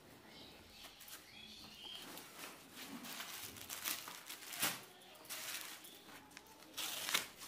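Plastic packaging crinkling and rustling in short bursts as cloth items in plastic bags are handled and laid out, the loudest rustles about halfway through and near the end.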